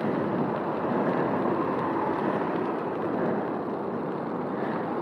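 Steady rushing noise of a bicycle being ridden along a city street: tyre and wind noise, with motor traffic alongside.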